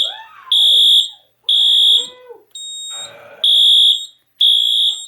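Wheelock MT-series horn strobe sounding code 3 (temporal-3): loud, high-pitched horn blasts of about half a second each, three in a row, a pause of about a second and a half, then the next three.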